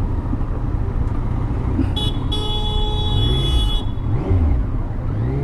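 Yamaha MT-09's three-cylinder engine running low in slow stop-and-go traffic, with a vehicle horn honking steadily for about two seconds in the middle.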